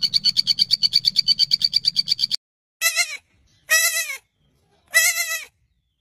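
Young goat bleating three times, short high bleats about a second apart. Before them comes a rapid, even trill of about a dozen pulses a second, lasting some two seconds.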